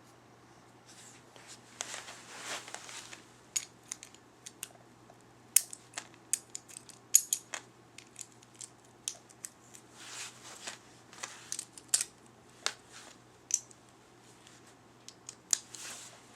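Plastic and metal spinning-top parts and packaging being handled: bouts of rustling with many sharp, irregular clicks and taps of small hard pieces.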